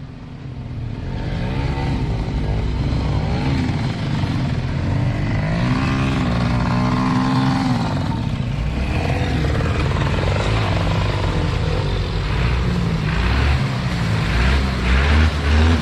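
Off-road four-wheel-drive vehicle's engine revving up and down under load, its pitch rising and falling again and again with a steady low rumble.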